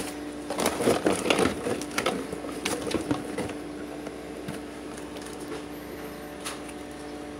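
Cardboard box and bubble-wrap packaging rustling and crinkling as an electric spray paint gun is lifted out by hand, with scattered clicks. The handling is busiest in the first three seconds or so, then thins to occasional clicks over a faint steady hum.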